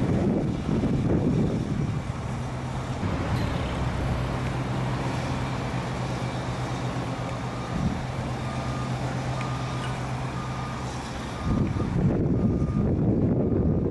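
Heavy diesel demolition machinery running steadily, with a reversing alarm beeping about every half second from past halfway. A louder, low, noisy rumble comes in near the end.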